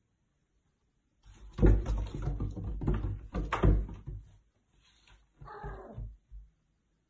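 A cat scrambling in an empty bathtub: a couple of seconds of thumps and scrabbling claws against the tub, the loudest knocks about two and three and a half seconds in. A short pitched vocal sound follows about five and a half seconds in.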